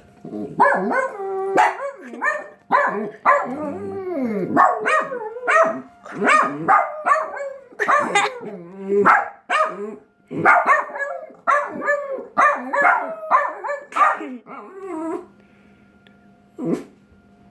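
A dog howling and barking in a long run of short calls that rise and fall in pitch, stopping about 15 seconds in.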